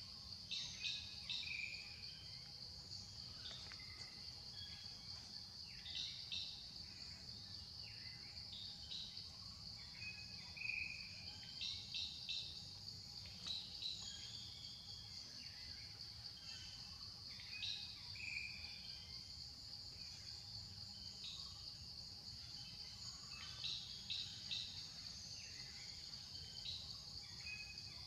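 Outdoor tree ambience: a steady, high-pitched insect chorus, with short bird chirps and quick runs of calls every few seconds over a low rumble.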